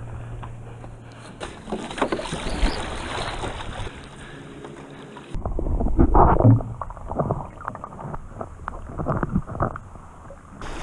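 Water sloshing and splashing. About halfway through it turns muffled and gurgling as the microphone goes under the water.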